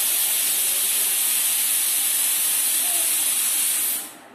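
A loud, steady, high-pitched hiss that cuts off suddenly about four seconds in.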